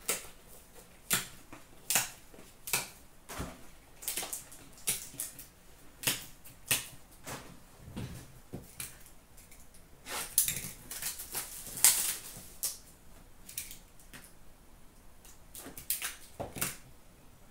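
Hockey card packs and cards being handled: an uneven run of sharp clicks, snaps and light crinkles as packs are picked up, turned over and set down, with a few quicker flurries.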